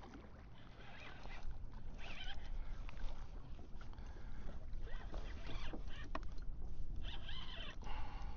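Water splashing and sloshing around a kayak, with clicks and knocks of gear being handled. The sound grows louder about a second in.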